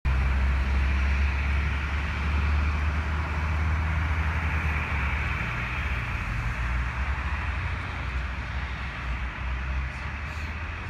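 Distant twin turboprop engines of a Bombardier Dash 8-100 running on the runway: a steady low propeller drone under a broad hiss, slowly easing off.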